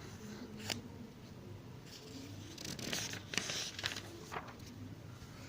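Scratchy rustling of paper, with a sharp click just under a second in and a cluster of scratches in the middle.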